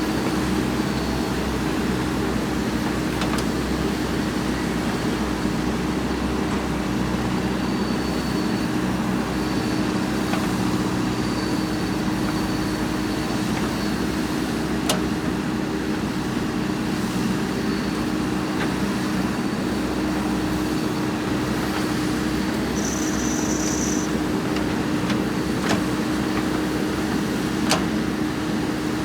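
JCB backhoe loader's diesel engine running steadily, with a few sharp clicks over it.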